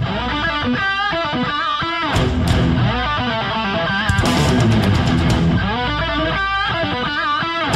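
Intro music: rock played on electric guitar, with quick melodic runs over a steady loud backing.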